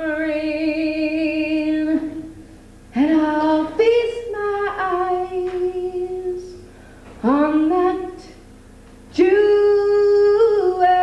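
A woman singing long, held notes with vibrato in four phrases, separated by short pauses, with no clear instrument under the voice.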